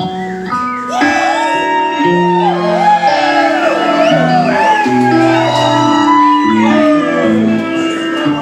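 Live country band playing the song's closing bars: strummed guitars and bass notes moving through the chords, with a high bending, wavering melody line over them.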